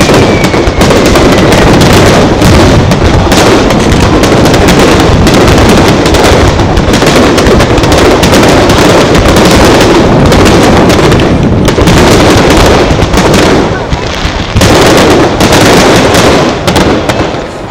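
Aerial fireworks barrage: shell bursts and crackle following one another so fast that they run together, very loud, with a brief lull late on.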